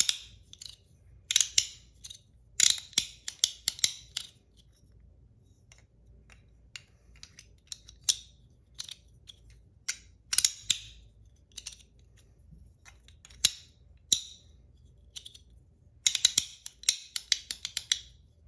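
Battle Master 1.1 fidget toy of PEI and aluminum, with titanium and brass parts, worked by hand: loud, sharp clicks, some single and some in quick runs of several, with pauses between.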